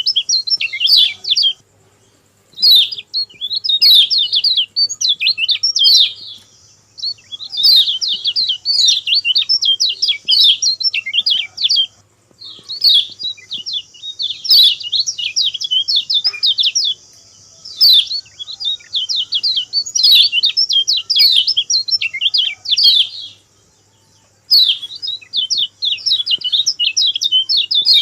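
Kecial kuning songbird singing a lure song. It gives long phrases of rapid, high chirping notes, each burst lasting a few seconds, with short pauses between.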